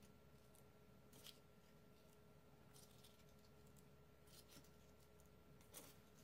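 Near silence, with a few faint, brief rustles of folded paper loops being set down on a craft mat.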